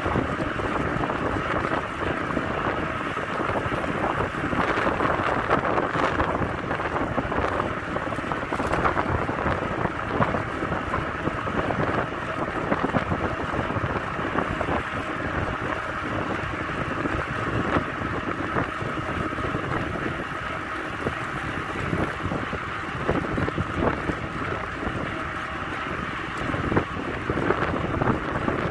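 Wind buffeting the microphone of a camera moving at cycling speed: a steady rushing noise that swells and dips unevenly.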